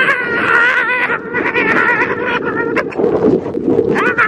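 A child's high-pitched, wavering voice, long drawn-out calls that wobble up and down in pitch, with brief breaks after about a second and about three seconds in. Wind rumbles on the microphone underneath.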